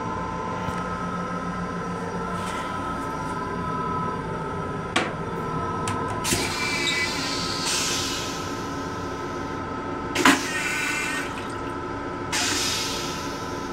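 LIRR M7 railcar toilet flushing: a click, then three bursts of hissing rinse spray. The loudest burst starts with a sharp clunk about ten seconds in, and the last comes near the end. The train's steady whine runs underneath.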